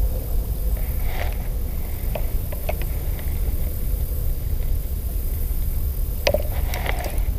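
A steady low rumble throughout, with a few faint ticks and a short run of sharper clicks near the end.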